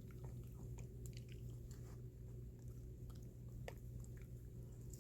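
A dog chewing and eating small bites of hot dog: scattered soft wet clicks and snaps over a steady low hum.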